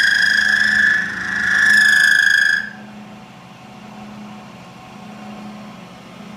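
Milling-machine cutter chattering as it cuts into a bulldozer cylinder head's valve seat: a loud, high, steady ringing squeal that dips briefly about a second in and stops abruptly about two and a half seconds in. After that only the mill's steady low motor hum remains. The chatter comes from the cutter's pressure against the seat.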